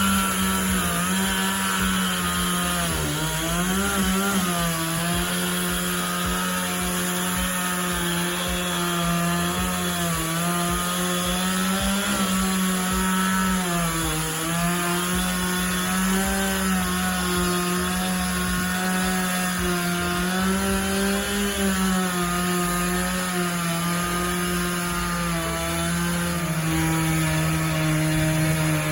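Two-stroke chainsaw running at high revs and cutting limbs from a rotten tree. The engine pitch sags and recovers every few seconds as the chain bites into the wood.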